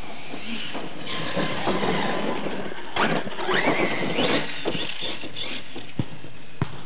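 Corally Kronos 1/8-scale electric RC truck on a 6S LiPo driving fast over grass and dirt: motor whine rising and falling in pitch with the throttle, with tyre and dirt noise, loudest as it passes close about three to four seconds in. Two sharp knocks near the end.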